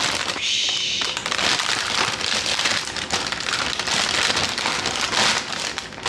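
A sheet of parchment or wax-type kitchen paper crinkling and rustling as it is handled, a continuous stream of small crackles.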